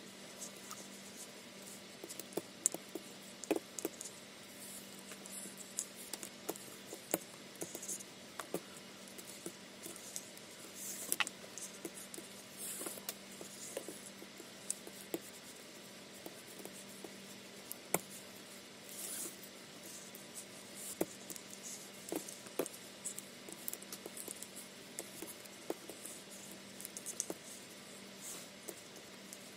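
Quiet handling noise of braiding cords being threaded and pulled tight by hand: soft rustling with scattered small clicks and taps, over a faint steady hum.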